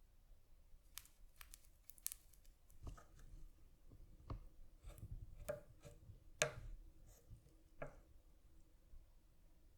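Faint, scattered small clicks and taps at irregular intervals, with a sharper one about six and a half seconds in.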